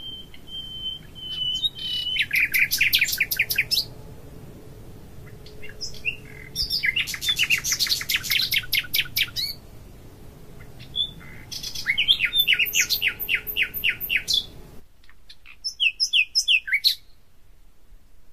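A songbird singing: four phrases of rapid, high trilled notes, each about two seconds long, separated by short pauses.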